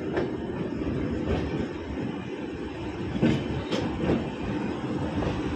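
Indian Railways passenger train's blue coaches rolling out of the station as the express departs: a steady wheel-and-rail rumble with a few sharp clacks over rail joints a little past three and four seconds in.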